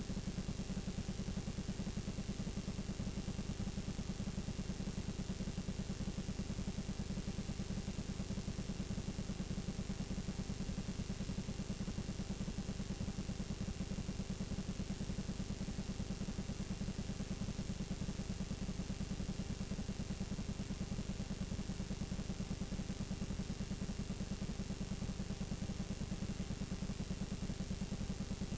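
Steady low buzz with a hiss over it, unchanging throughout: the noise of blank, unrecorded videotape playing back.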